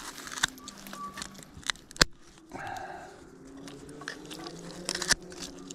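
Shears crunching and snipping through a carp's head and bones: several sharp snaps, the loudest about two seconds in. Distant motorcycle engines drone underneath, one rising in pitch in the middle.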